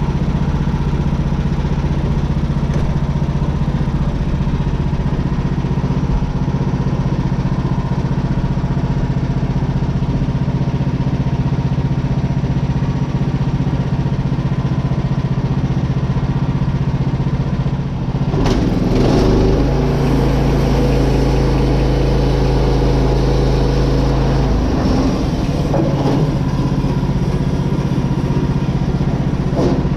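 Portable bandsaw sawmill's gasoline engine running steadily. About eighteen seconds in, the engine note shifts and a louder, rougher sound joins it for several seconds.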